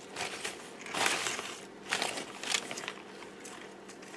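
Clear plastic bag crinkling and rustling in irregular bursts as a hand rummages through the paper flowers inside it, loudest about a second in and again around two seconds in.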